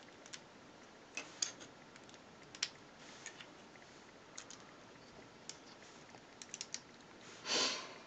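LEGO bricks being handled and pressed together: scattered light plastic clicks, a few in quick succession about a second and a half in and again between six and seven seconds in, with a short rushing noise near the end.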